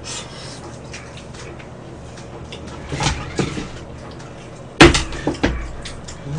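Small clinks of chopsticks and dishes as two people eat jjajangmyeon, with a few louder clatters about three seconds in. A loud knock of a ceramic plate set down on the table comes just before five seconds in.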